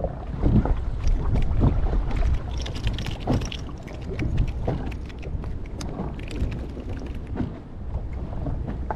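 Wind buffeting the microphone in a steady low rumble, with choppy water slapping irregularly against the boat's hull.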